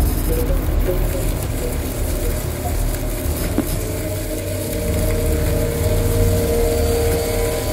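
Electronic sound composition of processed field recordings and modular synthesiser: a steady low rumble under held synthesiser tones that grow louder in the second half, with a few short pips in the first three seconds and a single click midway.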